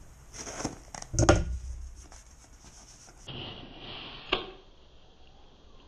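Cardboard shipping box handled and turned over in the hands: rubbing and scraping of cardboard, with a few knocks in the first two seconds, the loudest about a second in, and a sharp click a little past four seconds in.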